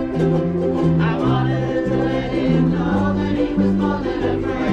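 A group of ukuleles strummed together in a steady rhythm, over a bass line that moves from note to note about every half second.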